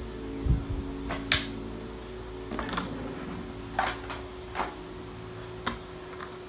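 Plastic toy food and a toy pizza pan being handled on a tabletop: a handful of light, separate clicks and knocks spaced irregularly through the few seconds, over a faint steady hum.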